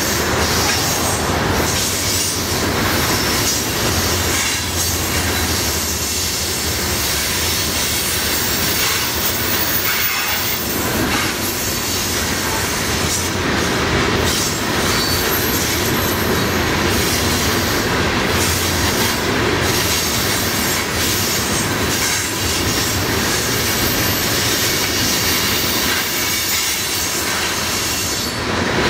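Loaded coal cars of a freight train rolling steadily past at close range: a continuous rumble and rattle of steel wheels on the rails with irregular clacking, and a thin high squeal of wheels against the rail now and then.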